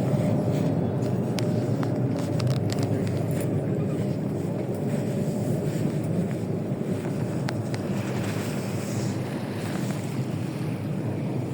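A tour boat under way at speed: a steady rumble of engine and water rushing past the hull, with wind buffeting the microphone. A few light ticks or knocks come in the first few seconds.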